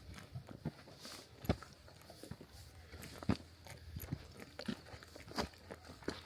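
Hiking footsteps crunching on a mountain trail, an uneven run of scuffs and crunches with a few sharper knocks about every two seconds.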